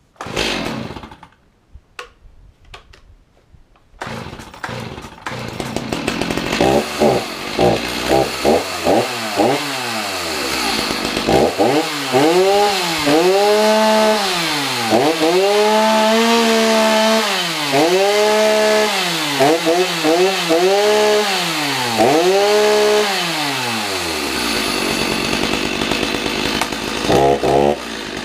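Stihl MS 310 two-stroke chainsaw cold-started after 24 years of storage. The engine catches about four seconds in and is blipped quickly several times. It is then revved up and down repeatedly, each rev rising and falling over a second or two, and settles to idle near the end, with a short burst of blips just before the end.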